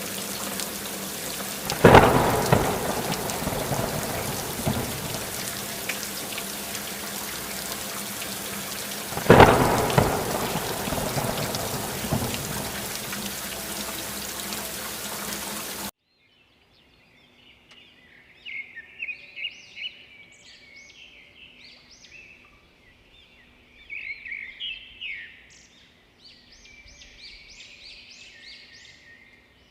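Steady heavy rain with two claps of thunder, one about two seconds in and one about nine seconds in, each rumbling away. The rain cuts off suddenly about halfway through, and small birds chirp and sing in short bursts of calls for the rest.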